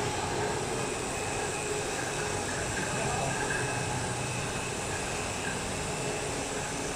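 Steady machinery noise from a CNC four-side edge-cutting saw running in production, an even mechanical din with faint steady tones and no distinct cuts or knocks.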